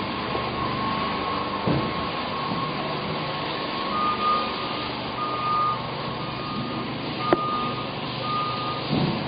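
A single-pitched electronic beep repeating about once a second, like a vehicle's reversing alarm, over a steady mechanical noise. One sharp click about seven seconds in.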